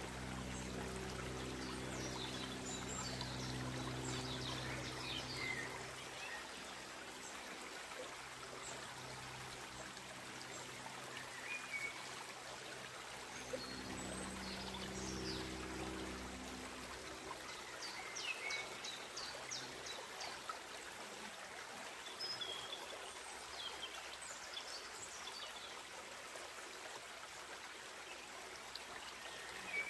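Shallow creek running over rocks, a steady rushing trickle, with a few short bird chirps scattered through. A faint low hum comes in at the start and again around the middle.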